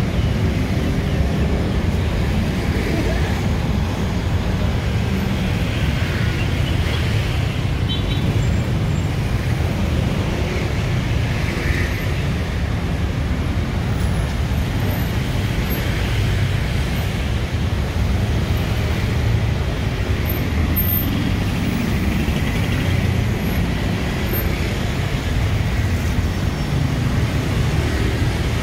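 Dense road traffic, a steady low rumble of engines and tyres, with faint passing voices at times.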